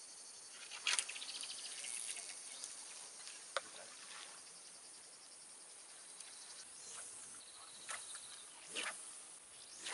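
Carp rod being cast: a sharp swish about a second in, then line running off the reel in a fast, fine buzz for a second or so, and a sharp click a couple of seconds later. Insects buzz faintly throughout, and more cast swishes come near the end.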